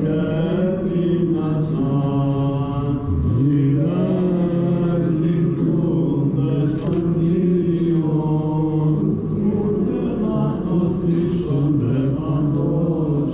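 Byzantine chant: a continuously sung, melismatic melody over a held low note.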